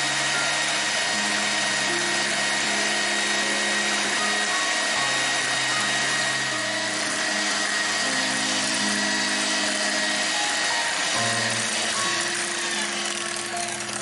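Electric hand mixer running at speed, its twin wire beaters whipping eggs and powdered sugar into a thick foam, with a steady motor whine that drops in pitch near the end. Background music plays underneath.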